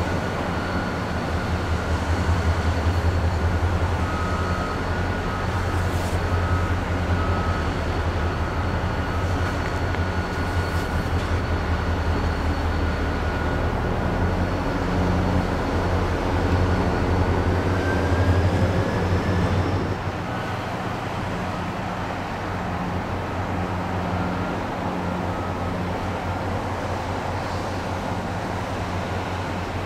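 Diesel freight locomotives running: a deep, steady engine rumble with a thin high whine held above it. The whine rises in pitch about two-thirds through, just before the rumble drops off. Two faint clicks from the camcorder taking still shots.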